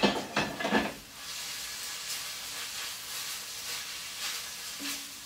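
A few knocks as the lid comes off an enamelled casserole. Then sliced onions sizzle steadily as they fry in oil.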